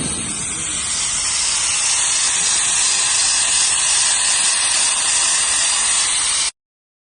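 Hypertherm Powermax65 plasma torch on a CNC cutting table, its arc cutting metal with a steady loud hiss of the air plasma. The hiss cuts off suddenly near the end.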